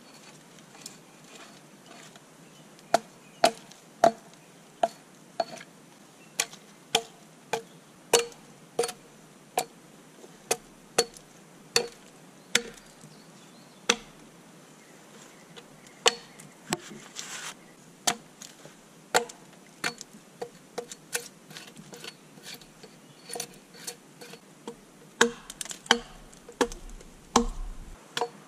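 Axe chopping into a peeled log, sharp separate strikes a little more than one a second at an uneven pace, with a quicker run of strikes near the end.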